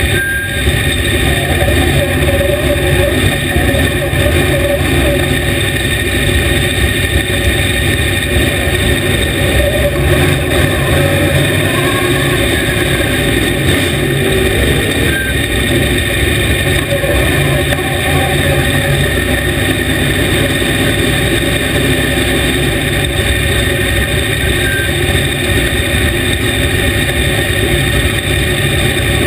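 Dirt late model race car's V8 engine running loud and steady, heard from inside the cockpit.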